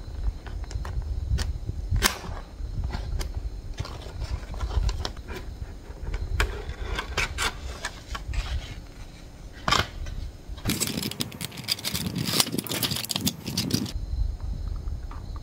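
Cardboard gift box of chocolates being opened by hand: scattered clicks and scrapes as the tape is peeled and the lid lifted off, then a few seconds of dense crinkling near the end as the foil-wrapped mini chocolate bars in the clear plastic tray are handled.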